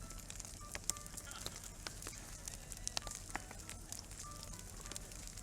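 Wood fire burning with irregular crackles and sharp pops, several a second.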